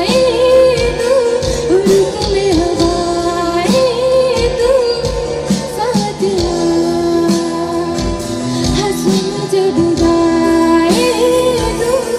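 A woman singing a slow Hindi film song live into a microphone, with long held notes that waver, over a band with drums keeping a steady beat.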